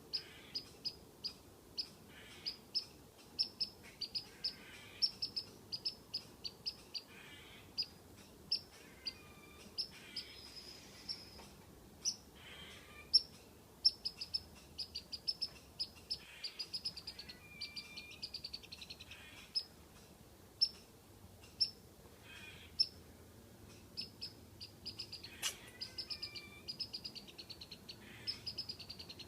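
Squirrel alarm calls: short, sharp, high chirps, some single and some in quick runs of several a second, repeated over and over as the squirrel scolds a cat.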